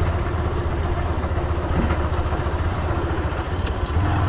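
Motorcycle engine running steadily while riding a rough dirt road, with a constant rush of wind and tyre noise over it.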